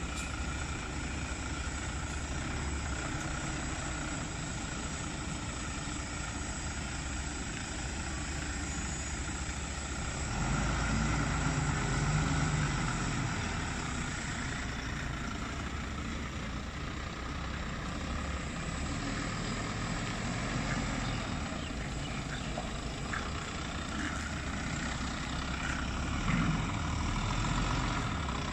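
Volvo FL10 truck's six-cylinder diesel engine running at low speed as the tractor unit slowly manoeuvres a long low-bed trailer, swelling louder for a couple of seconds about ten seconds in and briefly again near the end.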